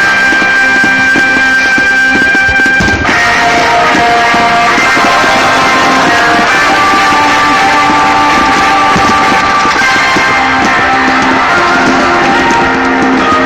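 Rock-style music with guitar, the background soundtrack that accompanies the fireworks show.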